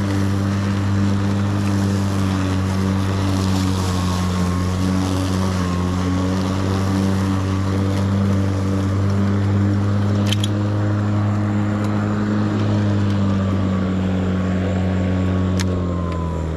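Kobalt 80V brushless cordless lawn mower running under load while mowing, a steady electric motor-and-blade hum. At the very end the motor is switched off and the hum slides down in pitch as it stops.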